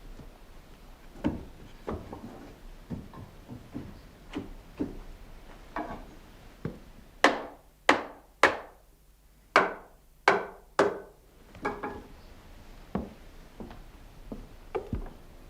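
Irregular knocks of something striking wood. About halfway through comes a run of roughly seven hard blows, spaced about half a second to a second apart, each ringing briefly.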